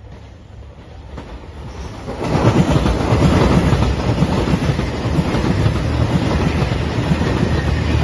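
JR Shikoku 2700-series diesel limited express train approaching and passing close by. Its engines and wheels on the rails grow louder, then turn loud about two seconds in and stay loud as the cars go past.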